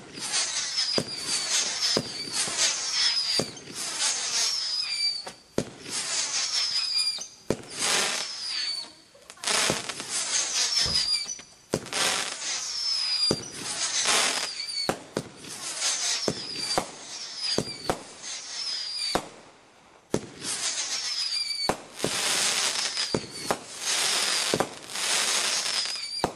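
Cannon Nebula Storm multi-shot aerial firework cake firing shot after shot, about one every second or two. Each launch bang is followed by crackling from the bursting stars and crackling palms, often with a short falling whine. There is a brief lull about three quarters of the way through.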